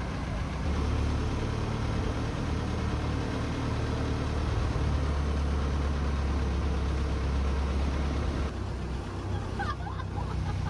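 Tour boat's engine running steadily with a low hum as the boat moves along the river. About eight and a half seconds in the engine sound cuts away, and brief voices follow.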